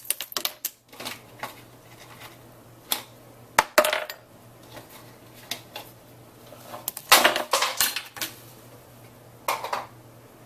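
Scattered clinks and clattering knocks of hard objects, in short clusters: a few in the first second, more around three to four seconds in, a busier burst around seven to eight seconds, and one last cluster near the end.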